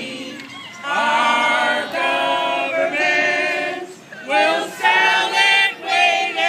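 A group of people singing together without instruments, in phrases of held notes that rise and fall in pitch.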